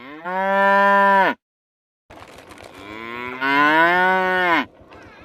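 Buffalo bellowing twice: a short low call of about a second, then after a pause a longer call that rises and falls in pitch.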